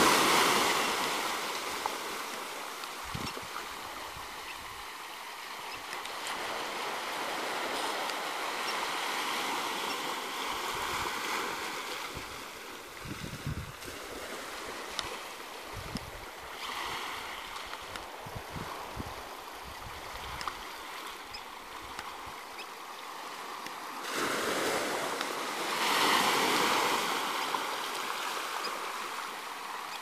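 Small waves washing onto a sandy shore, the surf swelling loudest at the start and again near the end, with some low rumbling bumps in between.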